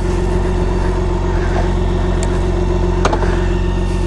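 BMW K1600B's inline-six engine idling steadily, with two sharp clicks about two and three seconds in.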